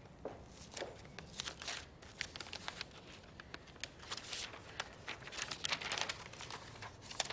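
Sheets of writing paper rustling and crinkling in the hands as a folded letter is opened and handled, in a run of irregular crackles.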